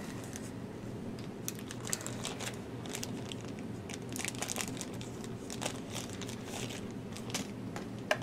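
A small plastic parts bag crinkling as it is handled, in a scatter of irregular crackles, with a steady low hum underneath.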